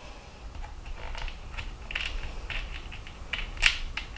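Light, irregular clicks, taps and scrapes of a small metal nut and screw being fitted by hand into a clear acrylic nail polish holder's side support, with the sharpest click a little before the end.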